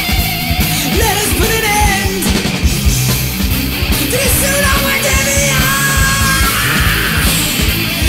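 1980s punk/metal band recording playing loud and steady, with a singer's voice over the band.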